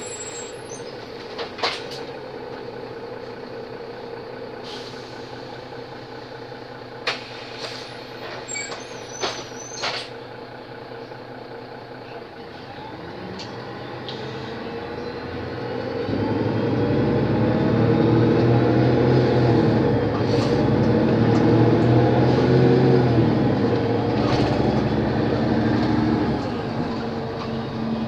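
Mercedes-Benz O 530 Citaro city bus's diesel engine, heard from inside the passenger cabin: a steady low running note with a few sharp clicks and knocks, then about halfway through the engine note rises and grows loud as the bus pulls away and accelerates, easing off near the end.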